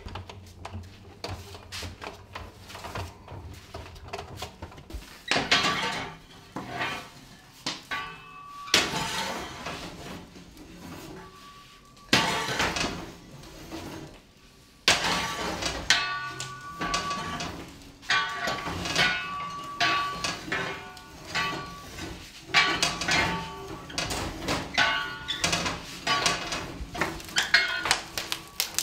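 Irregular clanks and knocks of metal tools and logs being handled at a wood-fired bread oven, some strikes leaving a short ringing note.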